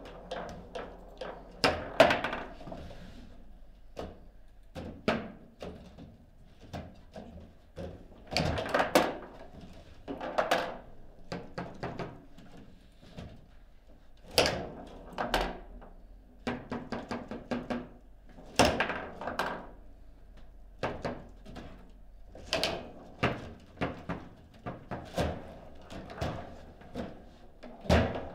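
Foosball game in play: irregular sharp knocks and clacks as the ball is struck by the plastic figures and rebounds off the table, with the rods knocking as they are slid and spun, the loudest hits coming in clusters every few seconds.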